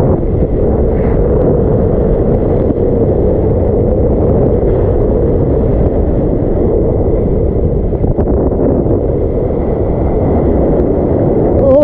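Steady, muffled rushing of water and wind against a waterproof action camera's housing.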